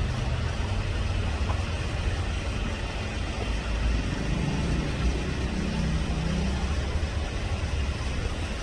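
Steady low rumble of road traffic, with an engine passing through the middle.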